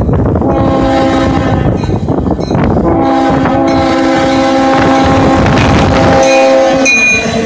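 Diesel locomotive air horn sounding a multi-note chord: a blast of about a second and a half, then a longer blast of about four seconds, blown for the grade crossing as the engine reaches it. The locomotive's engine and wheels rumble loudly underneath as it passes close by.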